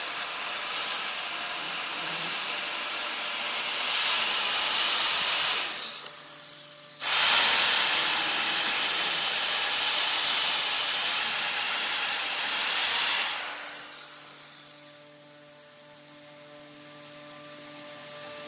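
Chainsaw ripping lengthwise along a log, running at full speed in two long cuts: the first ends about five and a half seconds in, the second starts abruptly about a second later and runs about six seconds before the saw stops, leaving a faint steady hum.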